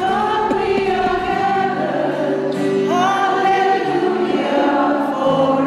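Choir singing slow, held notes as music over the closing logo.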